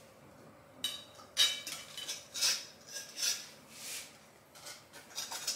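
Metal offset spatula scraping and clinking as custard cream is scooped from a glass bowl and spread on the cake, a series of short scrapes about a second apart starting about a second in.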